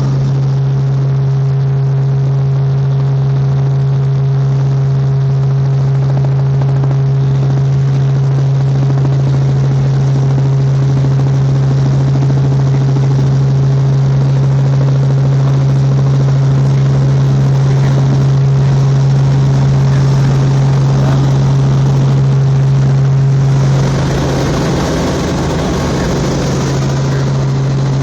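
Robinson R44 Raven helicopter in cruise flight: a steady drone of its six-cylinder piston engine and rotors, with a strong low hum. About 24 seconds in, a rushing, hissing noise rises for about three seconds, then fades.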